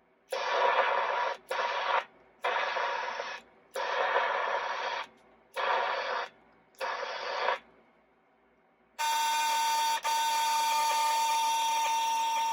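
Audio from an Edison Voicewriter dictation machine's speaker: six short bursts of hissy sound, then from about nine seconds in a steady electronic buzzing tone with a strong whine.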